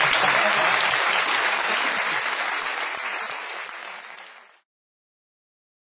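Audience applauding, dying away steadily before the sound cuts off to silence about four and a half seconds in.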